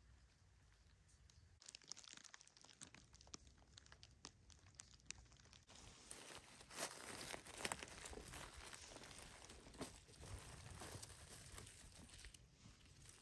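Quiet rustling and crackling of fallen leaves as a hand works through the leaf litter around a porcino's stem and grips it, with scattered light crackles that grow denser and louder about halfway through.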